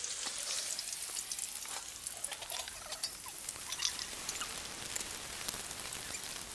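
Sliced onions frying in hot oil in a large pot: a steady sizzle with many small crackles and pops.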